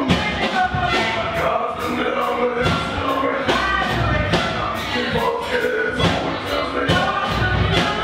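Live band playing loud: drums on a steady beat, a trumpet, and several voices singing together.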